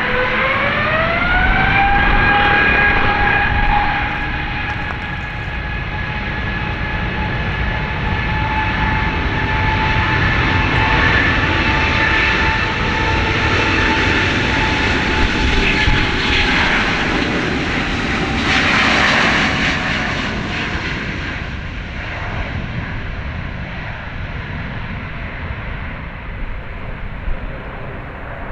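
Airbus A350-900's Rolls-Royce Trent XWB turbofans at takeoff thrust: a whine rising in pitch over the first couple of seconds, then held steady over a broad jet roar. The roar swells to a peak about two-thirds of the way through as the airliner passes, then fades as it climbs away.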